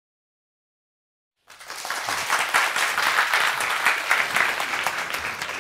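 Digital silence for about a second and a half, then an audience's applause starts suddenly, a dense steady clapping that eases off near the end.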